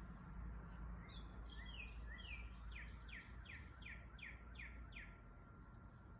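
Northern cardinal singing faintly: a run of repeated downslurred whistles, about three a second, starting about a second and a half in and ending near five seconds. A steady low background rumble runs beneath.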